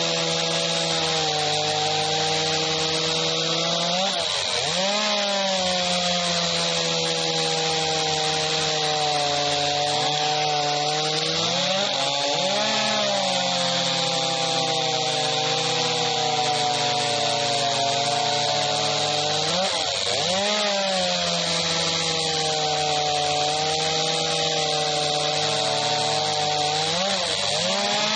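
Two STIHL chainsaws running at high revs while cutting through logs, one with a conventional chain and one with a STIHL Picco Duro hard-metal chain: a steady engine whine over the rasp of the chains in the wood. The engine pitch dips and recovers briefly four times, about every seven to eight seconds.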